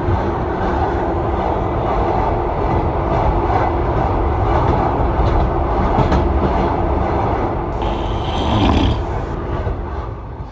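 Trans-Siberian passenger train running along the track: a steady rumble of the carriage with a few clicks of the wheels over the rails, and a brief hissing stretch about eight seconds in.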